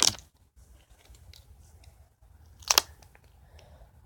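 Two short, crisp handling sounds about two and a half seconds apart, from scissors and tape being picked up and set out as craft materials.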